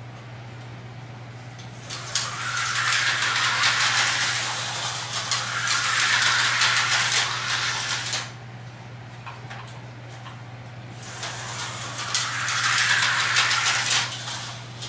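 Tyco slot cars running on a plastic track: a buzzing electric whir full of fast clicks and rattles, lasting about six seconds, fading, then coming back for about three seconds near the end. A steady low hum runs underneath.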